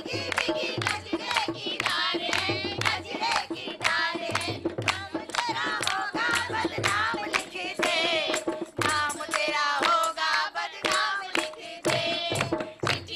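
Mehndi folk song sung live to dholak drumming and rhythmic hand clapping. The sung line wavers and ornaments over about two claps or drum strokes a second, with a repeating low dholak bass beat.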